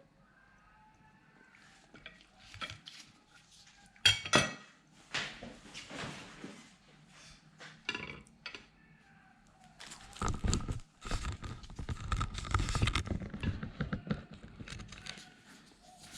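Kitchen utensils handled against dishes: scattered clicks, a sharp ringing metal clink twice about four seconds in, then a few seconds of scraping and rustling.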